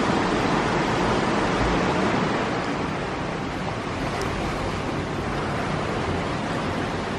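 Steady rush of ocean surf as small waves wash over rocks along the shore, with a low wind rumble on the microphone.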